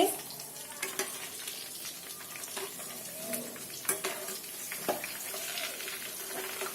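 Chicken pieces deep-frying in hot oil in a kadhai, a steady sizzle, with a few sharp clicks.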